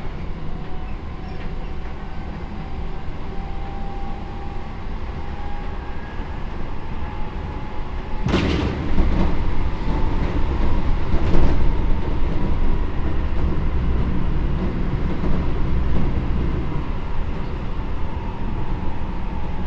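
Seibu 9000 series electric train running at speed, heard from inside the car: steady rumble of wheels on rail with a faint whine from the traction motors. About eight seconds in the noise jumps suddenly louder, with a second sharp burst about three seconds later, and stays louder after that.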